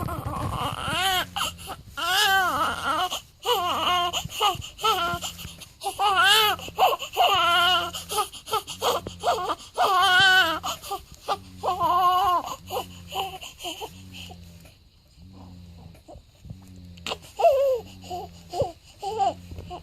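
Newborn baby crying in a string of short, wavering wails, falling quiet for a couple of seconds past the middle before starting to cry again.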